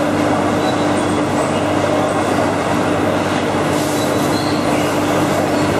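Automatic plywood edge-trimming saw machine running: a steady, loud mechanical hum with a constant low tone over dense noise.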